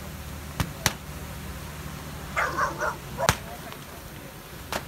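Sharp, loud single firecracker bangs going off one at a time, four of them, over a steady low rumble. A brief cry from a voice comes about halfway through.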